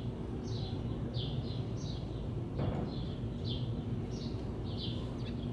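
A bird chirping over and over, short falling chirps about two a second, over a steady low hum, with a faint knock about two and a half seconds in.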